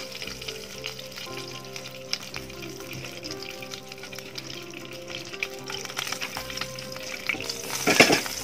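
Ghee melting and sizzling in a hot non-stick pan, a soft steady crackle of hot fat. A brief louder clatter comes about eight seconds in.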